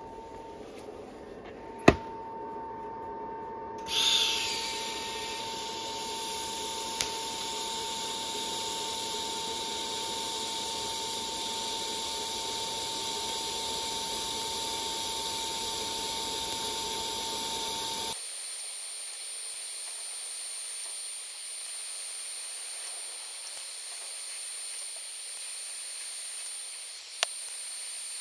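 TIG welding arc hissing steadily while a weld run is laid to build up a worn tractor steering-joint seal surface. There is a sharp click about two seconds in, and the arc strikes about four seconds in. Near two-thirds through the sound changes abruptly to a thinner, quieter arc hiss.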